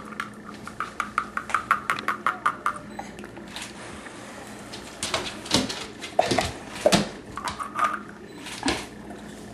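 A dog snapping at soap bubbles: a run of quick light clicks, about four a second, over the first few seconds, then scattered sharper snaps of its jaws in the second half.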